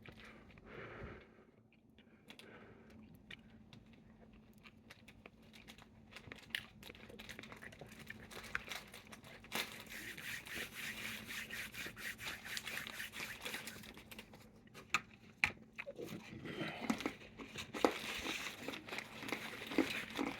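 Crinkling and tearing as a wrapped chicken korma roti is handled and pulled apart, with faint chewing; the rustling gets denser and busier in the second half.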